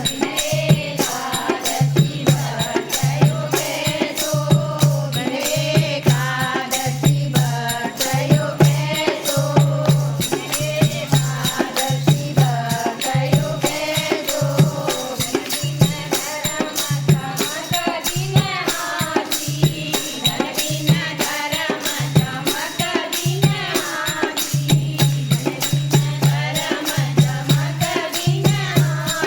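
A group of voices singing a Hindu devotional bhajan in chorus, over a steady low drum beat and continuous jingling hand percussion.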